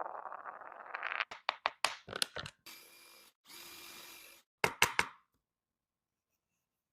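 Wood being worked by hand: a rasping scrape for about a second, then a quick run of sharp taps, two short stretches of steady noise, and three loud sharp knocks of wood on wood about five seconds in.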